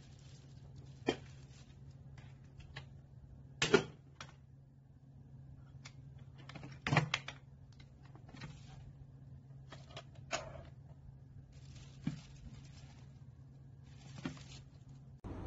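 Plastic lids, steamer tray and glass containers of a Bear electric heating lunch box being handled, fitted and set down: scattered clicks and knocks, the loudest about four and seven seconds in, over a low steady hum.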